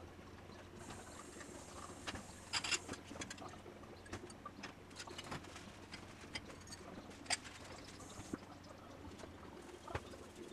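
Faint room tone: a low steady hum with scattered short chirps and clicks, the sharpest a little over two seconds in and again about seven seconds in.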